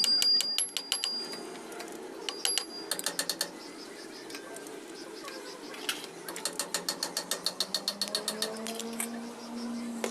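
Hand ratchet wrench clicking in quick, even runs: three bursts of turning, a short one at the start, another a couple of seconds in, and a longer one after about six seconds.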